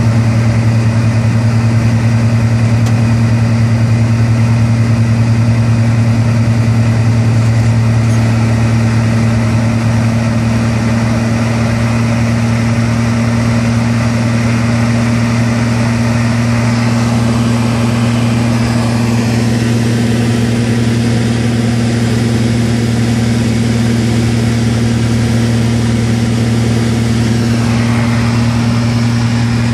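FK9 ultralight aircraft's engine and propeller running steadily in flight, heard from inside the cockpit as a loud, even drone with airflow noise; the level dips slightly about ten seconds in.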